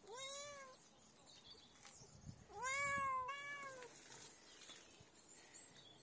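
Domestic cat meowing three times: one meow at the start, then two in quick succession about two and a half seconds in, the first of that pair the loudest.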